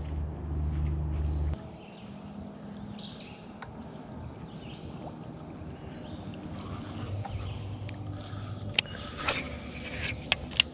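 Electric trolling motor humming low, then cutting off suddenly about a second and a half in, leaving a quiet steady outdoor background. Near the end come a few sharp clicks from the rod and reel being handled.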